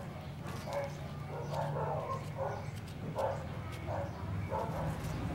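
A dog barking repeatedly in the background, short barks about two a second, over a steady low hum.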